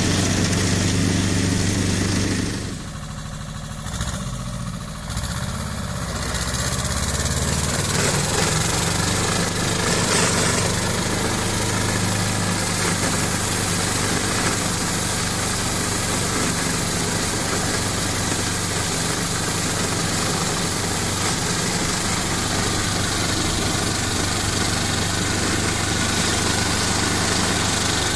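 Ferrari 95RS tractor's 40 hp Lombardini diesel engine running steadily under load, driving a tractor-mounted brush-cutter through grass and weeds. A few seconds in the sound drops quieter for a few seconds, then returns steady.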